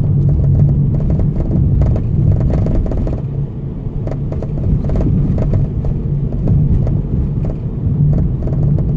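Car driving at road speed: a steady low rumble of engine and tyres, with a few small knocks scattered through it.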